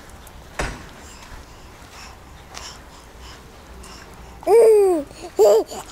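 Baby cooing and babbling: a few short sing-song calls whose pitch rises and falls, starting about four and a half seconds in. A brief knock sounds about half a second in.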